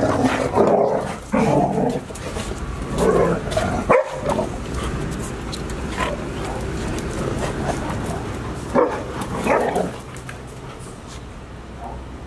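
Golden retrievers barking and yipping in short bursts, several in the first four seconds and a couple more around nine seconds in.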